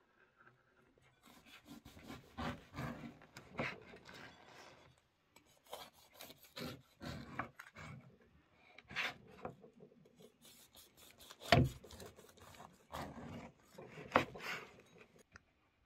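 A large knife sawing through the crust of a loaf of homemade bread on a wooden cutting board, in irregular rasping strokes, with a few sharper knocks against the board, the loudest near the end.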